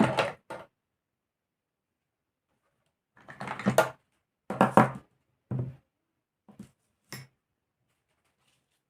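Knocks and clatter of small engine parts and hand tools being handled and set down on a table during disassembly, in short bursts: one near the start, then several about three to six seconds in, and two light taps after.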